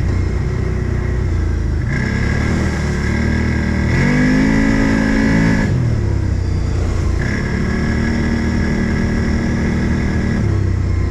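Odes 800 off-road vehicle's engine running under load, revs climbing about four seconds in and falling back about a second and a half later, with a high whine over the engine note for much of the time.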